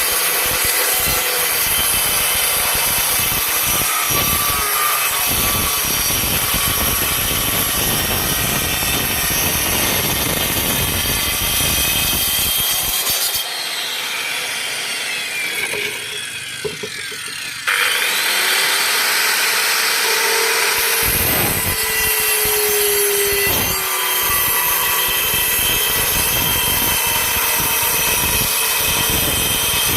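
Circular saw cutting plywood, a loud continuous rasping run of the blade through the sheet, dropping quieter for a few seconds about halfway through before coming back at full level.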